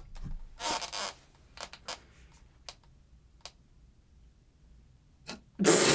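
A near-quiet lull in a small room: a short breathy rush about a second in, then a few faint light clicks. Near the end, men's voices break into laughter.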